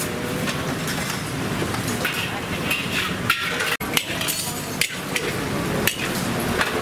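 Busy food-court ambience: background chatter with repeated clinks and knocks of dishes and utensils.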